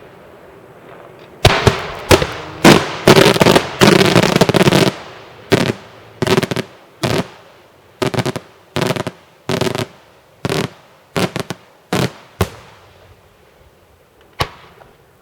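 Daytime fireworks bursting in loud bangs, each with a short echoing tail: a dense salvo starts about a second and a half in, then single bangs follow about half a second to a second apart, thinning out, with a last lone bang near the end.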